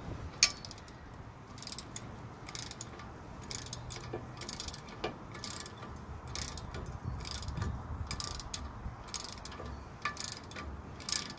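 Ratchet wrench clicking in short irregular runs as a nut is tightened on a bolt that presses a rust-stuck brake rotor off the hub.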